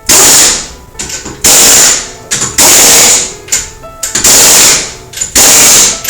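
Impact wrench hammering on wheel lug nuts in five short bursts of about half a second each, a little over a second apart.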